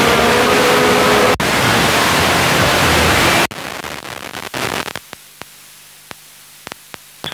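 FM radio receiver tuned between stations, giving loud static hiss. About three and a half seconds in, the hiss cuts out abruptly as the tuner steps to the next frequency, leaving quieter crackling clicks over a faint low hum.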